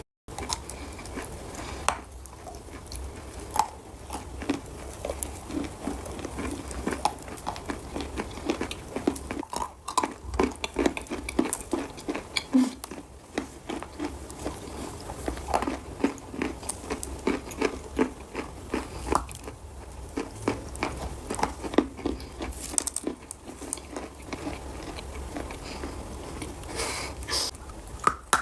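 Lumps of edible chalk being bitten and chewed close to the microphone: a dense, uneven run of dry crunches, the chalk squeaking a little under the teeth.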